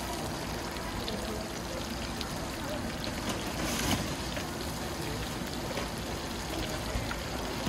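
Hot oil in a wok sizzling steadily as battered pieces deep-fry, with a brief louder surge of sizzling about four seconds in as a freshly battered piece goes into the oil.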